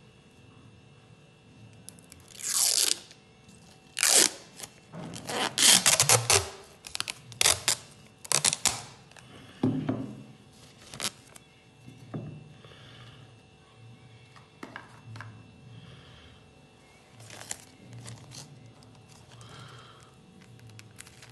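Thin plastic dental barrier film being peeled off its roll and crumpled by hand. Several seconds of loud crackling rips, some falling in pitch, are followed by softer, scattered crinkles as the sheet is handled and laid down.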